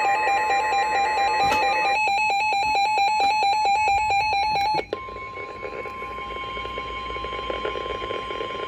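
Reecom NOAA weather alert radio sounding its alert for a tornado warning. A loud electronic alarm warbles, then beeps about ten times a second, and cuts off about five seconds in. A quieter, steady single-pitch warning tone from the broadcast follows.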